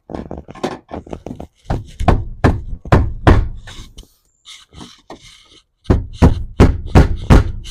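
Hammer blows tapping the fuel pump's locking ring around to seat it on the fuel tank: a rapid series of sharp knocks, a pause with lighter taps, then another run of knocks near the end.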